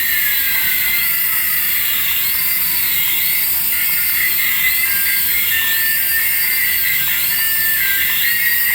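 Tinny electronic sound effect from a battery-powered toy's small speaker: a high warbling pattern that repeats about once a second, after a falling glide near the start.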